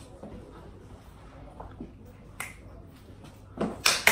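Hands clapping: one light, sharp clap about two and a half seconds in, then two louder claps close together near the end.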